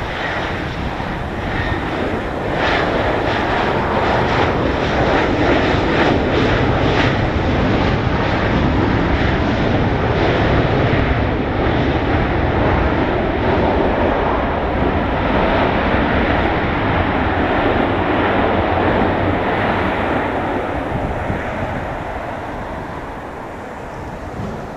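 Boeing 737-700's CFM56-7B jet engines roaring as the airliner rolls out just after touchdown. The roar swells about two seconds in, holds, then fades over the last few seconds as the plane slows.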